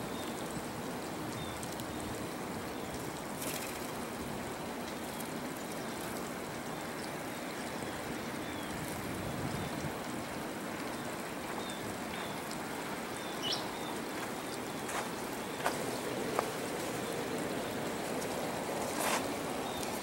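Steady rushing of flowing water, with a few faint, short high chirps and sharp ticks scattered over it.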